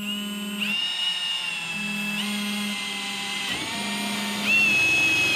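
Cordless drill driving a self-tapping screw straight into a steel wine-rack frame tube, without a pre-drilled hole. Its motor whines steadily, stepping up and down in pitch as the load changes, and runs louder and higher for the last second or so.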